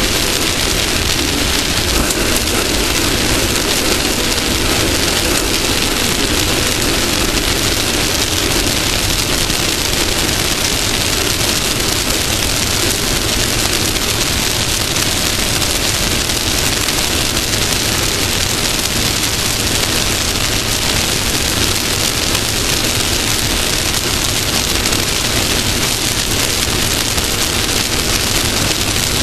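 Off-road race car running at speed: a steady, loud, unbroken rush of engine, wind and dirt noise.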